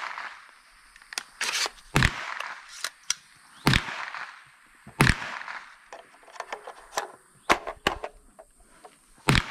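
Gunshots from other shooters on the range: several loud single reports at uneven intervals, each followed by a short echo, with fainter cracks and clicks between them.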